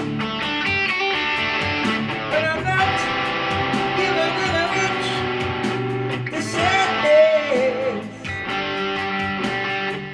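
PRS electric guitar playing a lead line with bent notes over a rock band backing with drums.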